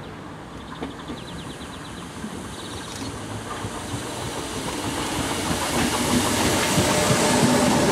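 Southern Class 313 electric multiple unit running into the station platform. Its wheel and rail noise grows steadily louder as the train draws alongside.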